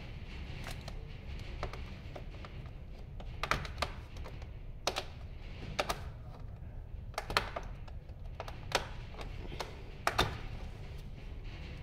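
Plastic snap-fit locks on the rear housing of a TVS Electronics RP415C Pro touch POS terminal clicking as the case is prised apart by hand. About ten sharp clicks come at irregular intervals.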